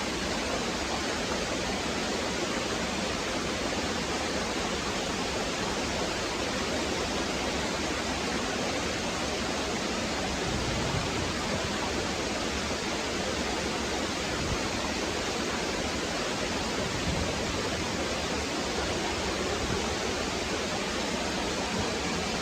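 Small waterfall splashing and pattering down over rock: a steady, even rush of falling water.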